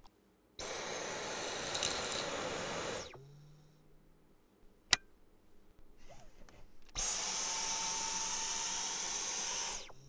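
Dyson V11 cordless stick vacuum running in two spells of about three seconds each, starting about a second in and again about seven seconds in. Each spell is a steady rush of air with a high whine that winds down quickly when the motor is switched off. A single sharp click comes about five seconds in.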